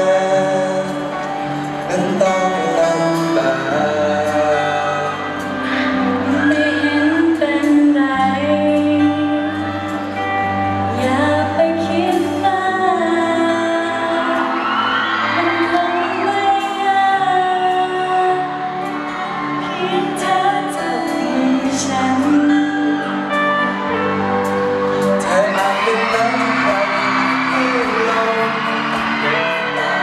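Live pop duet: a man and a woman singing into microphones over band accompaniment, his voice leading at first and hers later on.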